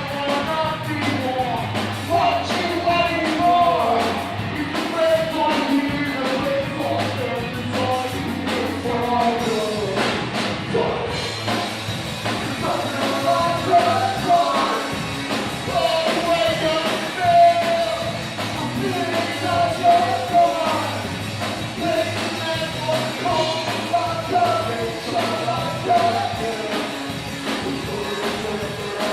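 Rock band playing live, with a singer's voice carrying the melody over drums, bass and guitar.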